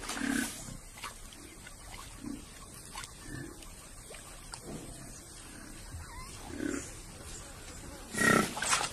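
African buffalo grunting: short, low grunts every second or two, with a louder call near the end.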